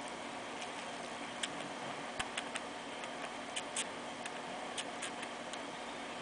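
Small, irregular clicks, two or three a second, from a baby squirrel suckling milk from a syringe, over a steady low hiss.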